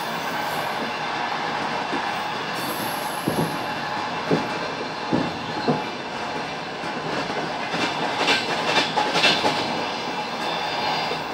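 Passenger train running on rails, heard from on board: a steady rumble with separate wheel knocks at rail joints between about three and six seconds in, then a quick run of clacks about eight seconds in.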